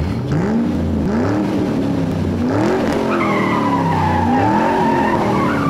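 Car engine revving up and down several times, as at a race, with a long tyre screech starting about three seconds in.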